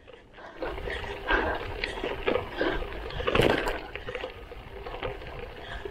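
Lauf Anywhere gravel bike rolling over a rough grass-and-gravel double-track: tyres rumbling and the bike rattling over bumps, with wind on the camera microphone. It starts about half a second in.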